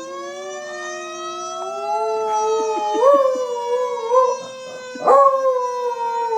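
A recorded fire truck siren plays, its long tone gliding slowly in pitch, while a beagle howls along with it. The howling joins in about three seconds in, wavering up and down, and is loudest about three and five seconds in.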